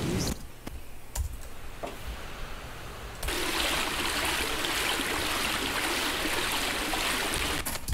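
A recorded water sound-effect sample, a steady rush of running water, starts suddenly about three seconds in and cuts off near the end, after a few faint clicks. It is a stock effect being auditioned from a drum rack as a candidate water sound.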